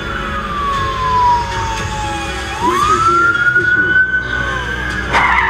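Emergency vehicle siren wailing: one slow falling sweep, then it rises and holds high, over steady road rumble. A sharp knock sounds about five seconds in.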